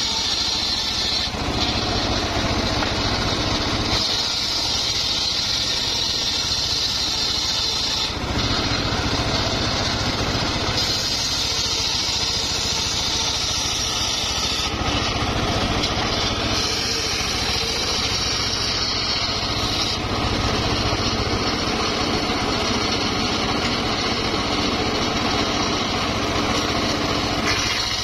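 Engine-driven homemade circular saw bench running steadily while its blade rips wooden planks lengthwise. The high sound of the cut changes several times as the wood is fed through and the blade moves in and out of the cut.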